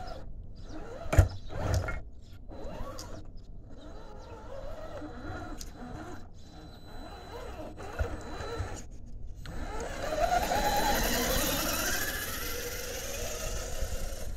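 Surpass Hobby 550 brushed electric motor and drivetrain of a 1/10-scale RC rock crawler whining as it drives on grass, the pitch wavering with the throttle. A sharp knock comes about a second in, and near the end the whine climbs steadily in pitch.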